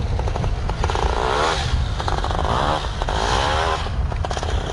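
Quad (ATV) engine revving hard as it climbs a steep sand hill, its pitch rising and falling in three swells, over a steady low rumble.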